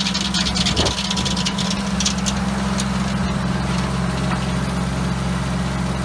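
Foley Belsaw M14 circular sawmill blade finishing a cut through red oak, the high cutting noise dying away about a second in. After that the blade spins free while the antique tractor engine driving it runs steadily.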